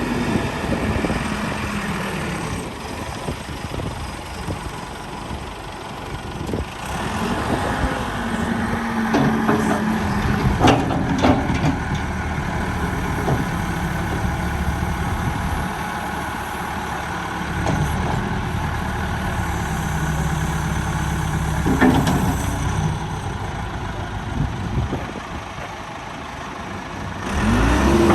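Cat 416C backhoe's diesel engine running, its pitch rising and falling several times, with a few sharp metallic knocks. It speeds up sharply near the end.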